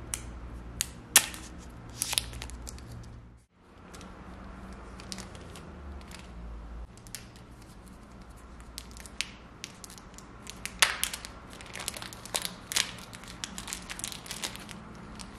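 Packaging being handled: a few sharp clicks from the pencil and its cardboard box, then, after a cut, a thin clear plastic bag crinkling and rustling as a silicone pencil cover is worked out of it, densest near the end.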